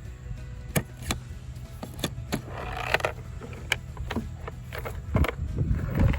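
Tractor-mounted metal toolbox being handled: a string of sharp clicks and knocks from its lid and latches, with a short rattle about three seconds in, over a low steady hum.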